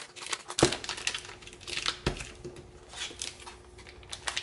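A clear plastic packaging bag crinkling as a Hobonichi Techo Weeks Mega planner in a clear cover is slid into it and handled, with two soft knocks about half a second and two seconds in.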